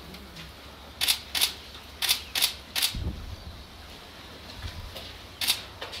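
A series of short, sharp clicks: two about a second in, three more a second later about a third of a second apart, and one more near the end, with a dull low thump about three seconds in.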